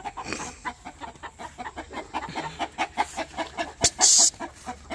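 Chickens clucking in quick, short notes. About four seconds in comes a brief sharp hiss, a "tsst" that the owner makes to stop a puppy from chasing a chicken.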